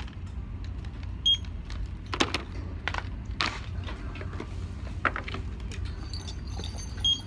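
Metal rattles, clicks and knocks from a wire shopping cart being handled and items being moved about, over a steady low hum, with two short high beeps, one early and one near the end.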